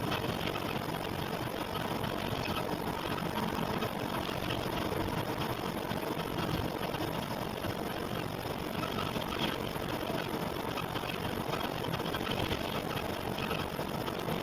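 Steady mechanical running noise, like an engine idling, with no breaks or distinct knocks; the uploader presents it as an abnormal noise.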